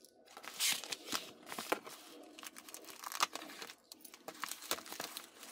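Plastic bubble mailer being slit open with a utility knife and rummaged through by hand: irregular crinkling and tearing of the plastic with sharp crackles, broken by a short pause about four seconds in.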